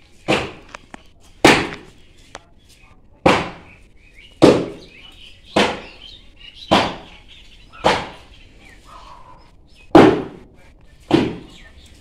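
A steady series of sharp, heavy knocks, one about every second, like repeated chopping or beating blows, with a short gap near the end of the run.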